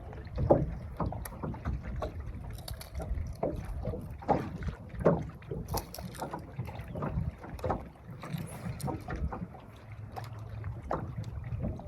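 Water lapping and slapping irregularly against the hull of a small aluminium bass boat, with scattered knocks.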